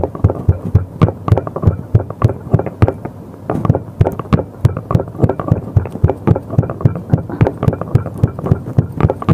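Pestle pounding green chillies, garlic, salt and coconut in a black stone mortar, steady short thuds about three a second, crushing them into a coarse chutney.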